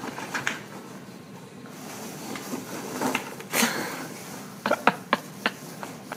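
Foam packing peanuts rustling and clicking in a cardboard box as a small dog burrows and jumps through them, with a longer burst about halfway through and a quick run of sharp clicks near the end.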